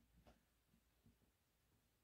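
Near silence: room tone, with a couple of very faint soft ticks.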